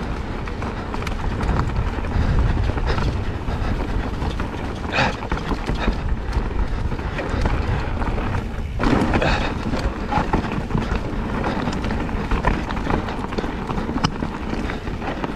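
Specialized Turbo Levo e-mountain bike rolling over wet roots on a trail, its tyres rumbling and the bike rattling and knocking in quick irregular clicks. Strong wind buffets the helmet-mounted microphone.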